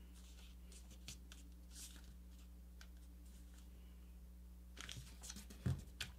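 Faint rustling and creasing of a sheet of paper being folded and pressed flat by hand, a few soft crinkles at first, then a busier patch of rustling with a soft thump of the hands pressing the paper against the mat near the end.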